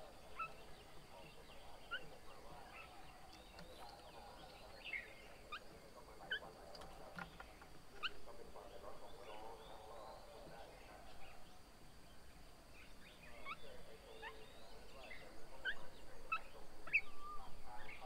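Several birds calling: many short, sharp chirps and whistles over a softer, wavering chatter, the calls growing busier and louder near the end.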